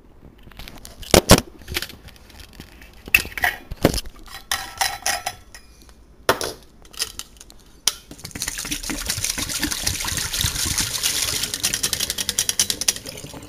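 Kitchenware being handled, with scattered knocks and clinks. About two-thirds of the way in, a steady rush of flowing liquid begins and runs for about five seconds.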